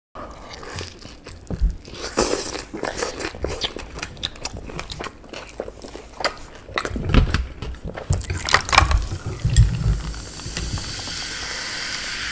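Close-miked chewing of gyoza: a run of crisp crunches and wet mouth sounds, which gives way to a steady hiss near the end.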